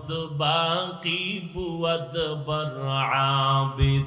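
A man's voice chanting in the drawn-out, melodic sung style of a Bangla waz sermon, with long held notes that waver and bend in pitch.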